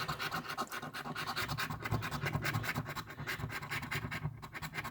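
Coin or scraper scratching the latex coating off an instant lottery scratch-off ticket in quick rapid strokes.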